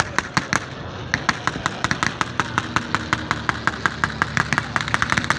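Vintage piston-engined aircraft passing low, its engine drone under a rapid, even clatter of about seven sharp pops a second.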